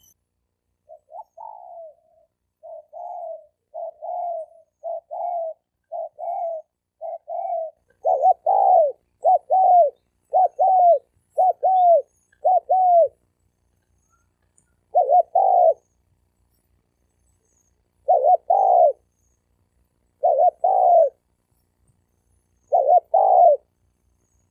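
Wild spotted doves cooing in challenge, as males do when facing off: a quick run of soft coos that grows louder, then a burst of louder arched coos. After that come single loud coos every two to three seconds.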